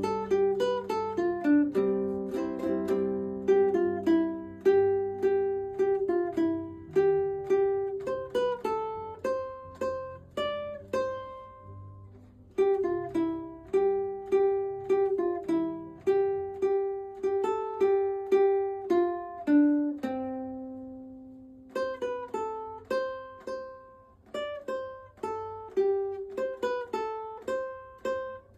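Background music: a plucked-string melody, ukulele-like, with each note ringing and fading and short pauses between phrases.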